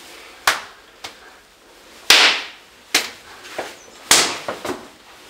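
Hands slapping together in an elaborate handshake greeting: a quick series of sharp slaps and claps, about eight in all, the two loudest at about two and four seconds in.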